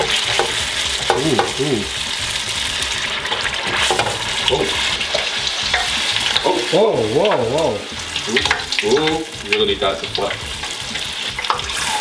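Hot oil in an electric deep fat fryer bubbling and crackling steadily around a battered half baguette of garlic bread that has just been lowered into it.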